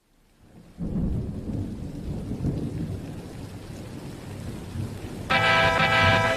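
Low rolling thunder with rain, swelling in under a second in. About five seconds in, a sustained musical chord comes in over it.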